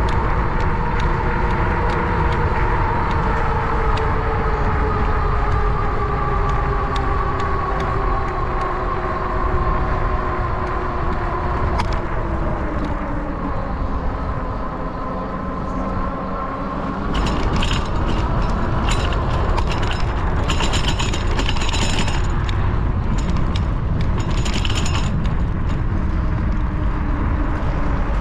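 Bicycle ridden along a street: wind rumble on the mic and a steady whine from the bike that slowly drops in pitch as it slows, easing off around halfway. Then, as it sets off again, comes a run of rapid mechanical ticking and rattling.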